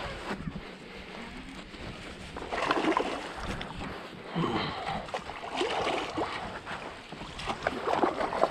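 Small waves lapping and splashing against the hull of a bass boat, in irregular surges.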